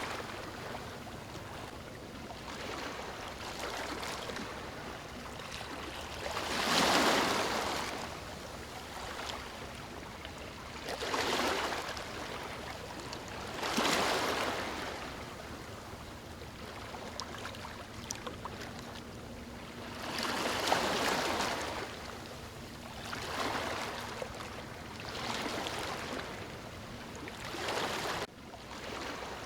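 Ocean waves breaking on a beach, each one surging in and washing back every few seconds, the biggest about seven and fourteen seconds in.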